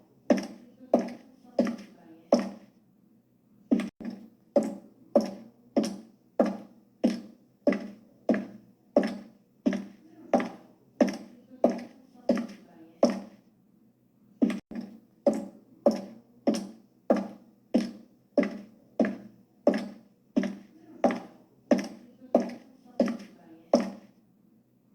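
High-heeled shoes walking on a hard floor: sharp clicking steps, a little under two a second, each with a short ringing tail. The walking pauses twice for about a second, a few seconds in and about halfway through.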